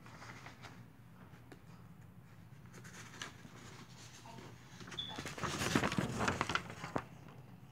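Paper rustling and crinkling as newsprint pages are turned and folded by a gloved hand, with the handling of bagged comics. It is light at first and becomes a loud burst of crackling from about five seconds in to about seven seconds, over a low steady hum.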